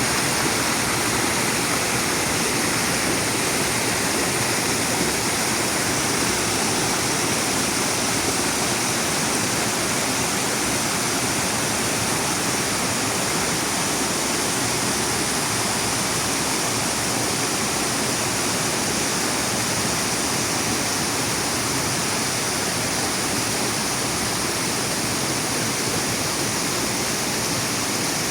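Waterfall on a mountain river, water falling and rushing in a steady loud roar of even noise.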